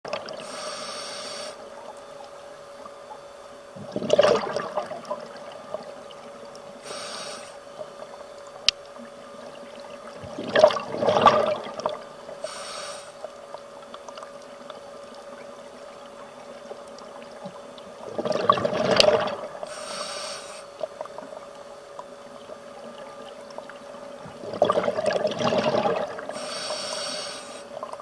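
Scuba diver breathing through a regulator underwater: four bubbling exhalations about seven seconds apart, each lasting a second or two, with a short hissing inhalation in between. A steady faint hum runs underneath.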